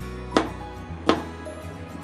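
Background music, with two sharp knocks of a chef's knife slicing through pickled gherkins onto a plastic cutting board.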